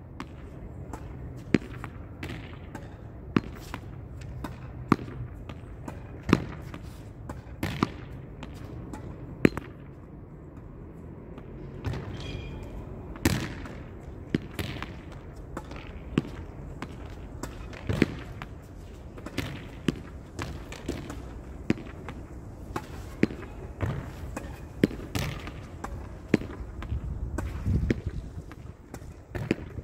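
A ball being hit against a wall over and over: sharp knocks about every one and a half seconds, with fainter bounces in between.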